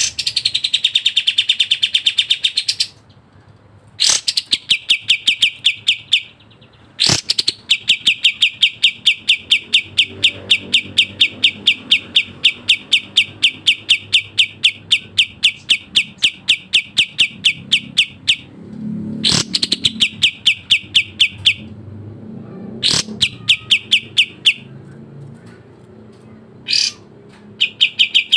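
Kapas tembak songbird singing long, fast runs of evenly repeated sharp notes, about five a second, in several bouts, each opened by a brief sweeping note and separated by short pauses.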